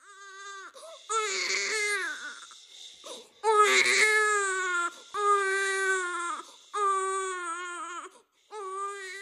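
A newborn baby crying: a run of about six wailing cries, each a second or so long, with short breaths between them. The first cry is faint.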